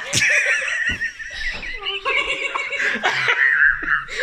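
A teenage girl laughing hard, in a long run of wavering, high-pitched laughter.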